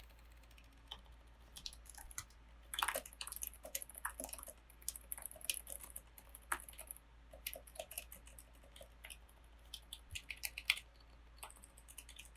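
Typing on a freshly built mechanical keyboard with Kailh Box Silent switches and SA-profile keycaps: quiet, irregular key clicks, some in quick runs.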